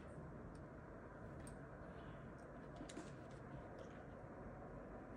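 Faint, scattered light clicks at irregular intervals over a low, steady background rumble.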